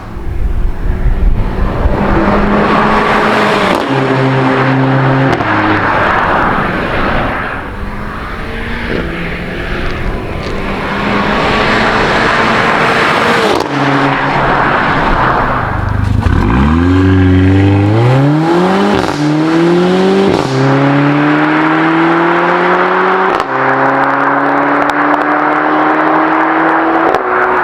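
Mercedes-AMG CLA 45's turbocharged 2.0-litre four-cylinder engine running under load. About halfway through it accelerates hard, the note climbing and then dropping back at each of about three upshifts.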